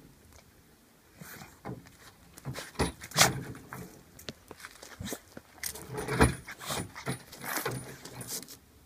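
Metal dog chain and collar fittings clinking and rattling in irregular clinks, starting about a second in, as the chained dog twists and bends to lick its groin.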